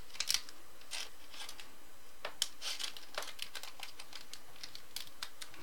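Light rustling and scattered faint clicks of trading cards being handled and sorted.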